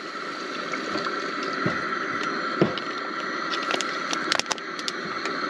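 Chicken stock poured from a plastic bottle into a hot pan of red curry paste on a gas camp stove, the liquid splashing and bubbling in the pan over a steady hiss, with a few light clicks.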